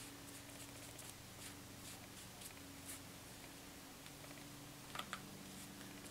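Faint swishing of a foam brush spreading a thick coat of Mod Podge across a painted cardboard book cover in long strokes, over a steady low hum. Two small clicks about five seconds in.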